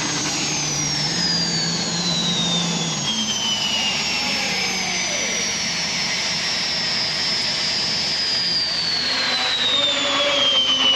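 Modified pulling tractor's supercharged engines running flat out under load, a loud steady roar with a high whine that slides slowly down in pitch.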